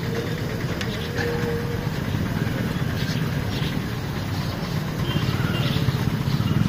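Motorcycle engine idling close by, amid steady street traffic rumble, with a few light clicks.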